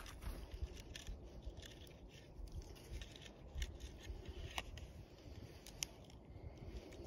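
Wind rumbling on the microphone, with a few sharp clicks and scrapes scattered through it.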